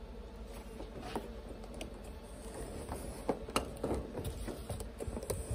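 Soft clicks and taps of a clear plastic acetate sheet being pressed and smoothed by hand onto the top of a wooden hive box, more frequent in the second half.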